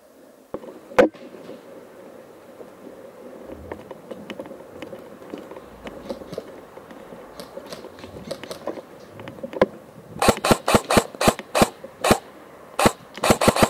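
Airsoft rifle shots: one sharp crack about a second in, then from about ten seconds in a rapid string of sharp snapping shots, about six a second, in two volleys with a short gap. Before the shots, low rustling and faint ticks of the player moving across the forest floor with the gear.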